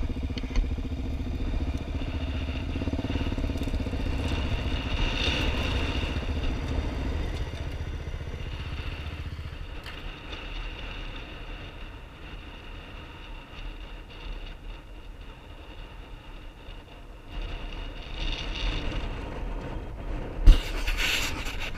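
Quad bike engine running, louder for the first seven seconds and then quieter. There is a sharp knock near the end.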